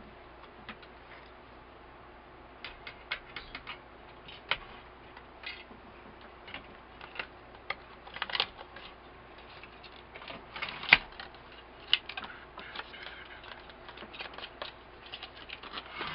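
Irregular light clicks and taps of small parts being handled while an LCD monitor is reassembled by hand, with one sharper knock about eleven seconds in.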